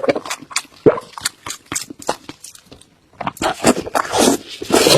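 A person chewing pork knuckle close to the microphone: wet smacking and clicking of lips and mouth several times a second, busier and louder in the last couple of seconds.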